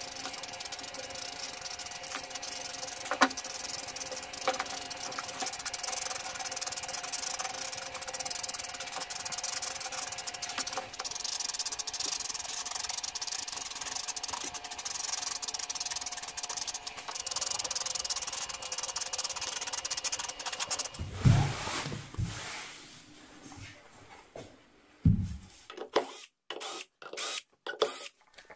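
Aerosol spray paint can hissing steadily as black paint is sprayed onto a wooden subwoofer cabinet. Near the end the spraying stops, and a few low thumps and clicks of the cabinet being handled follow.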